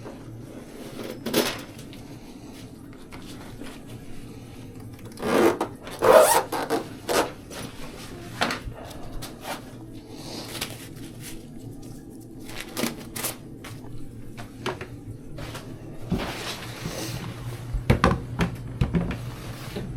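Scattered knocks, clicks and scraping of hands working with hard objects, busiest about five to seven seconds in and again near the end, over a steady low hum.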